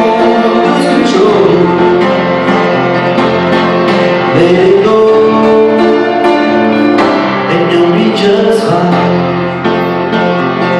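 Live song: a man sings long held notes that slide in pitch, over steady instrumental accompaniment.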